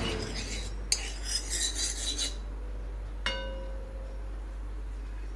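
Metal ladle scraping and rubbing around the inside of a wok for about two seconds, then a single metal clink about three seconds in that rings briefly.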